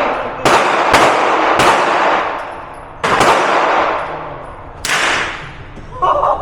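Five gunshots fired one at a time at an uneven pace, each ringing out in a long echo down an indoor shooting range, ending as the magazine runs empty.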